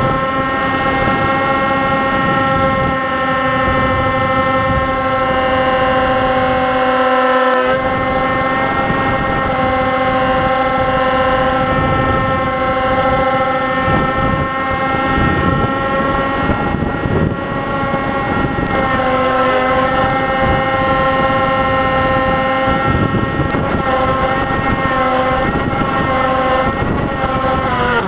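RC plane's motor and propeller running at steady cruise throttle, a constant high whine, with wind rushing over the wing-mounted camera's microphone. The pitch sags slightly near the end.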